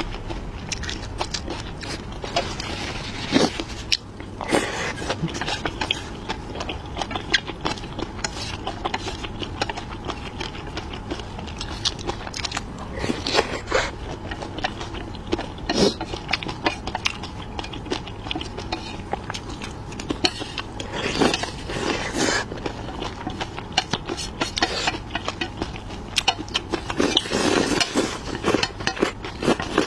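Close-miked chewing and biting of chili dumplings: a dense, irregular run of small wet clicks and smacks, with louder bites every few seconds.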